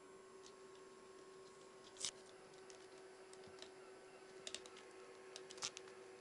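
Near silence: a steady faint hum with a few light clicks, the loudest about two seconds in and a small cluster near the end.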